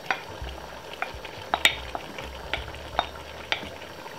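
Chopped vegetables being scraped off a plate with a wooden spoon into a pot of simmering curry: a string of short knocks and taps, about seven in four seconds, over the pot's steady low sizzle.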